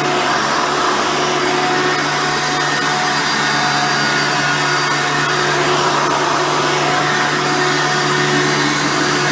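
Hoover Soft & Light Supreme vacuum cleaner with a 7-amp motor running steadily while vacuuming, a constant motor hum and whine with no changes.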